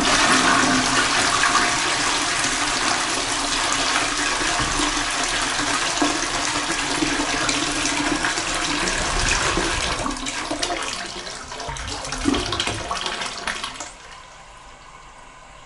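Toilet flushing: loud rushing, swirling water that runs on steadily, swells once more near the end, then falls away suddenly about two seconds before the end, leaving a faint steady hiss.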